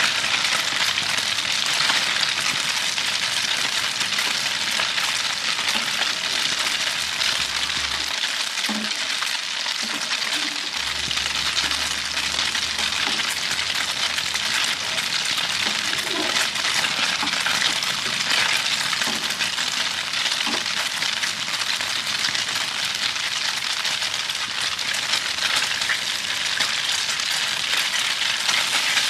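Food frying in hot oil in a pan: a steady, even sizzle.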